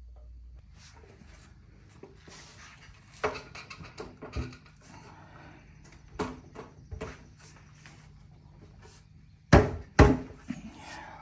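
Irregular wooden knocks and clatter of boards and clamps being handled as a glued tabletop section is put together and clamped, with two sharp knocks near the end, the loudest.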